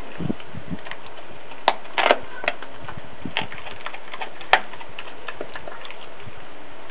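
Australian cattle dog chewing a whole raw rooster: irregular wet crunches and sharp cracks of bone between its teeth, the loudest about two seconds in and again about four and a half seconds in, over a steady hiss.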